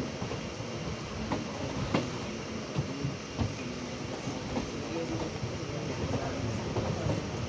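Passenger train running along the track: a steady rumble of wheels on rail, with sharp clicks as the wheels pass over rail joints, several of them less than a second apart.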